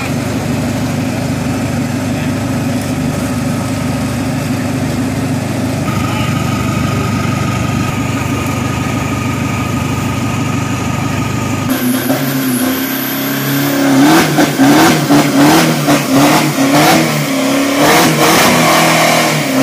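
A drag-racing pickup truck's engine idles steadily, then from about twelve seconds in revs hard in quick repeated surges as it does a burnout, the rear tyres spinning.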